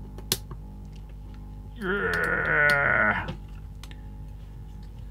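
A man's wordless vocal sound, wavering in pitch and lasting about a second and a half near the middle, with a small tick of metal tweezers on the circuit board just before it.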